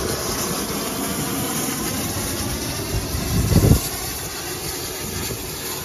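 Stationary Austerity 0-6-0 saddle-tank steam locomotive hissing steadily, with a brief louder low rumble about three and a half seconds in.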